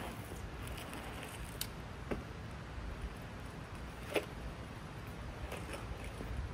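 BMX bike being ridden and spun through flatland tricks on smooth concrete: a low steady rumble of the tyres rolling, with a few scattered clicks and knocks from the bike, the sharpest about four seconds in.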